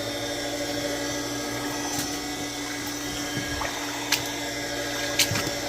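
Well pump motor running with a steady hum as it pushes water through the pipes to refill the house's water lines after being brought back to prime. Three sharp clicks come over it, about two, four and five seconds in.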